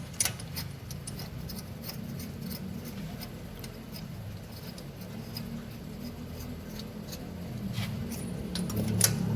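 Scattered light metallic clicks and clinks of hand tools and spark plugs as the plugs are fitted into the engine's plug holes, with one sharper click near the end, over a steady low hum.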